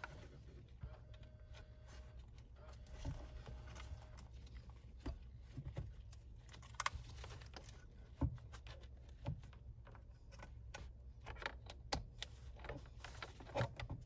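Scattered clicks and light knocks of wiring plugs and plastic trim being handled and connected in a car's centre console, over a low steady hum.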